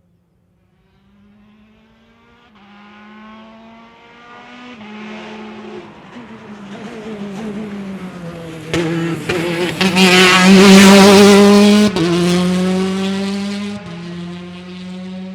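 A rally car's engine approaching at full race pace, its pitch stepping through gear changes as it grows louder. It is loudest as the car passes through the corner about ten seconds in, with a couple of sharp cracks, then fades as the car moves away.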